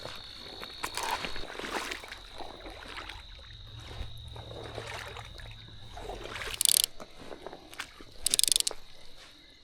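A fly reel's click-and-pawl drag rasping in two short loud bursts about a second and a half apart near the end, as line is pulled off the reel. Before them, a steady high insect trill with scattered rustles and clicks.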